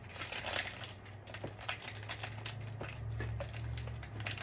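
Plastic snack wrapper crinkling and crackling as it is pulled open by hand, with a low hum underneath that grows stronger about three seconds in.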